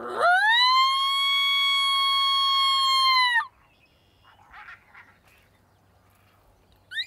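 A single long coyote howl from a predator call: it rises quickly, holds steady for about three seconds, then drops off and stops. Faint short calls follow, and a sharp falling yelp starts right at the end.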